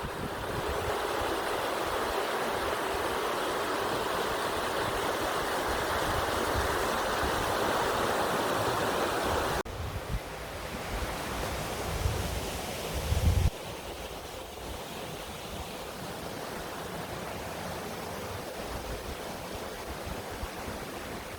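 Steady outdoor rushing noise that changes abruptly twice, with low wind rumble on the microphone in the middle stretch.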